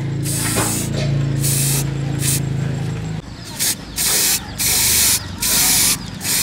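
Spray paint hissing in short repeated bursts as silver paint is sprayed onto a metal stroller frame. A low steady hum runs underneath and stops about three seconds in.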